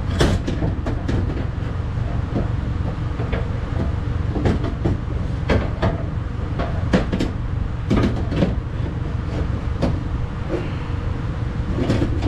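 Irregular metallic knocks and clanks as a window regulator's metal arms are worked back through the access opening of a pickup's door and bump against the door's sheet-metal inner panel, over a steady low rumble.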